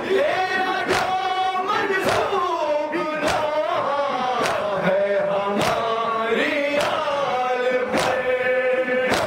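Group of men chanting a nauha, a Shia lament for Karbala, in unison, with the crowd striking their chests (matam) together in time: sharp slaps about once every second and a quarter, eight times.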